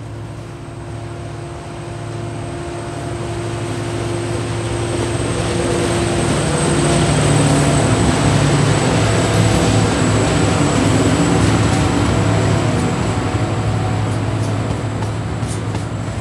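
Two TasRail TR class diesel-electric locomotives hauling a container train past, their engine drone growing louder as they approach and pass about halfway through, with a slight drop in pitch as the lead locomotive goes by. After that come the rumble of the container wagons rolling on the rails and a few sharp clicks near the end.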